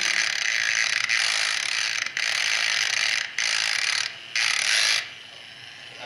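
Handheld rotary tool spinning an off-centre white felt bob pressed against a key in an electromechanical lock cylinder, a loud rattling buzz. It cuts out briefly about two and three seconds in, pauses near four seconds, and stops about five seconds in. This is a vibration attack that shakes the lock's blocking rotor until it turns.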